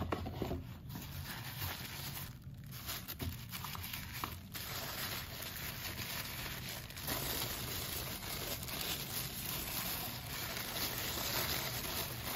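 Thin tissue paper crinkling and rustling as hands unfold it from around a packaged knife. The rustling comes in spells with brief pauses at first, then runs on continuously and a little louder in the second half.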